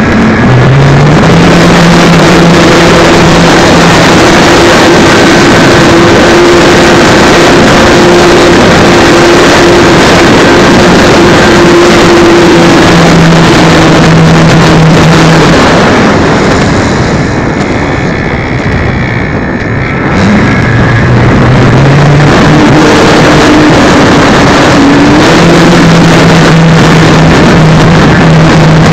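Loud, steady rush of airflow over the microphone of a keychain spy camera riding on a flying model glider, easing off for a few seconds about two-thirds of the way in. Under it runs a low hum that steps up and down in pitch.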